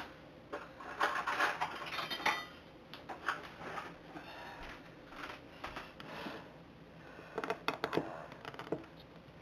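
Metal spoon scraping and digging into ice cream in a paper cup: irregular scrapes and clicks, busiest about a second in and again near the end.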